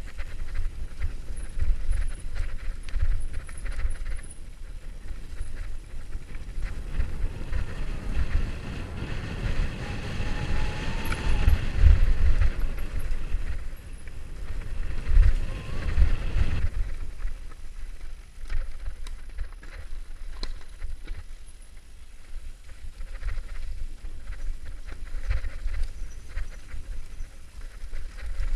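Mountain bike descending a rough dirt-and-rock singletrail at speed: wind buffets the microphone and the bike rattles and knocks over roots and stones. The sound grows louder for several seconds in the middle.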